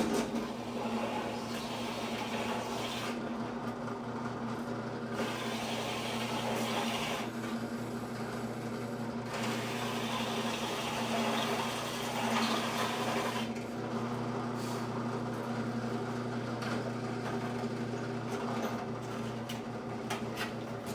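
Electric drill press motor running steadily with a low hum while the bit cuts into the floor pan's sheet metal, the cutting hiss coming and going as each hole is drilled out.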